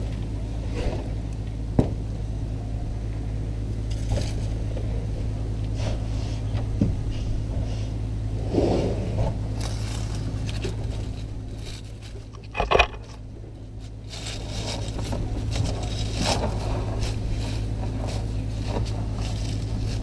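African elephant bull's trunk scraping and rustling over sand and against the ground-level camera as it feeds on fallen fruit. Scattered short scrapes and crackles run through, with one sharp, louder knock about two-thirds of the way through.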